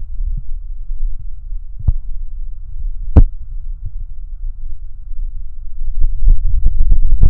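Heartbeat sound effect: a muffled, low throbbing pulse with a few sharp clicks, the loudest about three seconds in. From about six seconds in the beats come quicker and sharper, getting louder.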